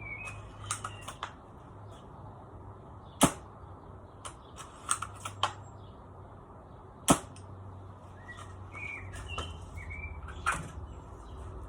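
Suppressed spring-powered bolt-action airsoft sniper rifles firing: two sharp snaps about four seconds apart, with fainter clicks and knocks between them and near the end. Birds chirp briefly now and then.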